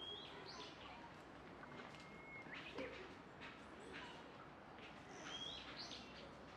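A few short bird chirps, with a thin held whistle about two seconds in, over a faint background hum.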